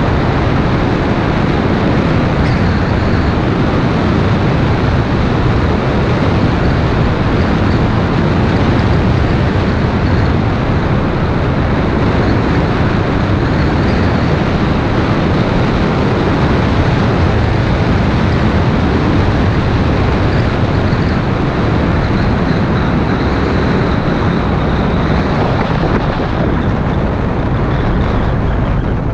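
Toyota MR2 Mk2 driving at speed down a mountain road: a steady rush of wind and road noise on the externally mounted camera, with no clear engine note standing out.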